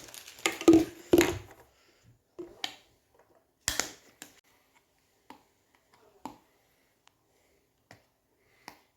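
Hair-treatment packaging being opened and handled: a little rustling and knocking in the first second and a half, then scattered sharp plastic clicks and taps about a second apart.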